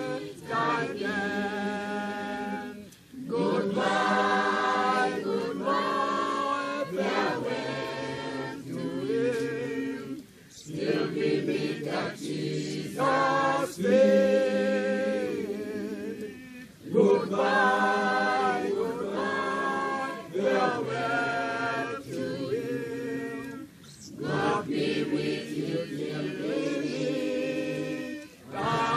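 Choir singing a cappella in several-part harmony, in long sustained phrases separated by short pauses.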